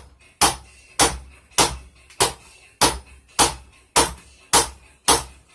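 Hand hammer striking a hot railroad spike on an anvil in a steady rhythm, a little under two blows a second, straightening the steel.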